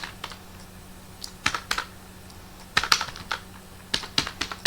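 Computer keyboard keystrokes during a typing-test run: a few scattered single key taps with pauses between them, then a quicker run of keys about three seconds in.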